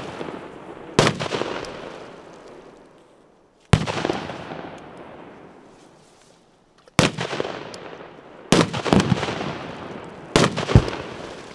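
Firecrackers going off in water: about six sharp bangs at uneven intervals, the last two close together. Each bang is followed by a noisy tail that fades over a second or two.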